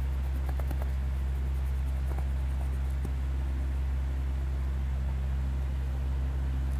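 A steady low machine hum, with a few faint light taps in the first three seconds.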